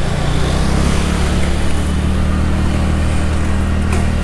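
TVS Ntorq 125 scooter's single-cylinder engine humming steadily as the scooter picks up speed, with wind rushing over the camera microphone.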